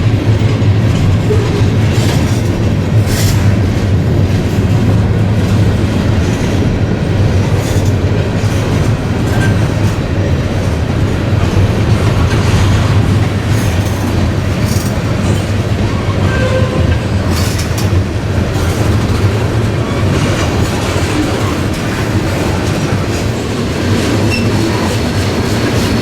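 Railcars of a passing train rolling by at close range: a steady heavy rumble with irregular wheel clacks over rail joints and a few faint, brief wheel squeals.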